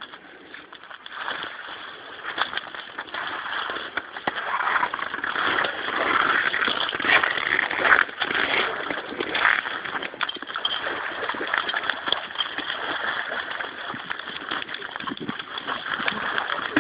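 Water sloshing and splashing irregularly, loudest through the middle.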